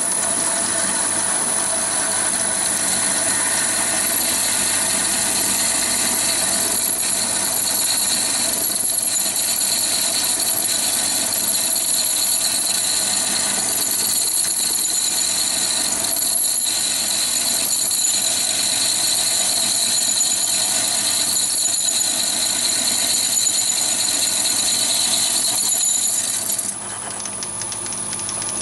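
Chinese mini lathe turning at about 300 rpm while a large HSS twist drill cuts into hardened steel bar: a steady machine drone with a thin high cutting whine. Near the end the high whine stops and the sound drops a little, while the lathe keeps running.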